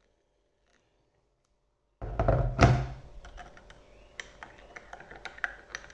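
Near silence, then about two seconds in a loud thump, followed by a metal spoon clinking repeatedly against a ceramic mug as coffee is stirred.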